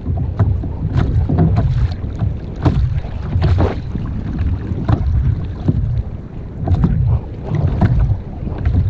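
Wind buffeting the microphone in a gusting low rumble, with water slapping and splashing against a sit-on-top kayak's hull in scattered small knocks and splashes.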